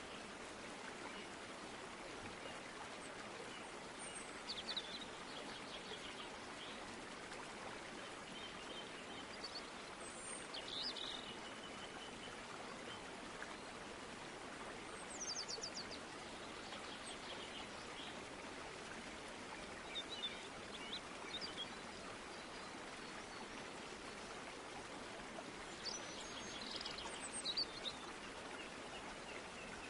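Birds chirping in short quick bursts every few seconds over a steady, even rushing hiss.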